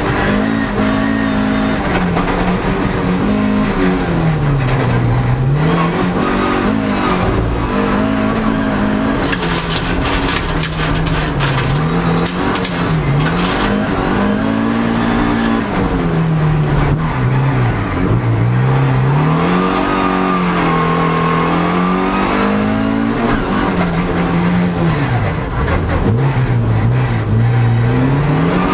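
Toyota MR2 (AW11) rallycross car's engine heard from inside the cabin on a fast lap, revving up and dropping back again and again through gear changes and lifts for the corners. From about ten seconds in, a few seconds of rattling and clicking as the car runs over loose dirt.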